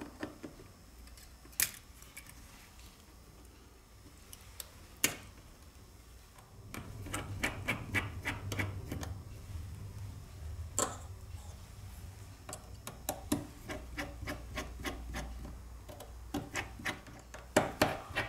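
Small tools and smartphone parts clicking and scraping during a phone teardown. A few separate sharp clicks come first, then runs of quick scraping clicks, several a second, midway and again toward the end.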